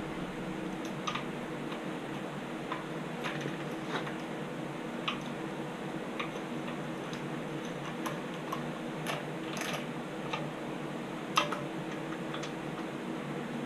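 Scattered light clicks and taps of hand tools and parts being handled on an engine, irregularly spaced, with one sharper click near the end, over a steady low hum.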